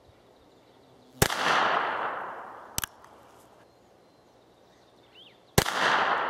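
Two shots from a North American Arms mini revolver in .22LR, firing CCI Mini-Mag rounds: sharp cracks about a second in and near the end, each trailing off into a long fading echo. A light double click between them is the single-action hammer being cocked for the next shot.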